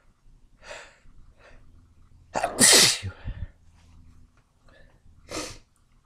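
A person sneezes once, loud and wet, about two and a half seconds in. A couple of short, quieter breaths come before it, and another short breath follows near the end.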